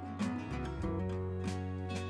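Background music: strummed guitar with a steady beat.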